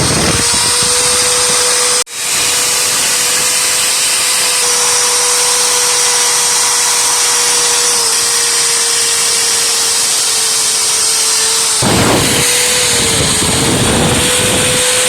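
An electric power tool's motor running with a steady whine whose pitch sags briefly a few times, as if under load, over a rough rasping noise. The sound breaks off abruptly about two seconds in and picks up again at once.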